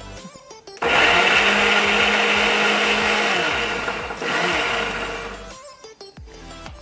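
Preethi Platinum Plus mixer grinder running, grinding ginger, garlic and green chillies into a coarse paste. The motor starts about a second in and runs for about three seconds, then gives a second, shorter pulse before it stops.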